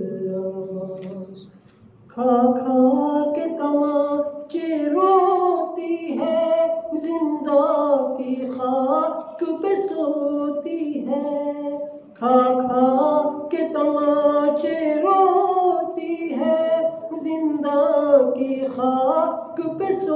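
A man chanting an unaccompanied devotional munajat into a microphone, in a slow, melodic voice with no instruments. He pauses briefly for breath about two seconds in and again about twelve seconds in.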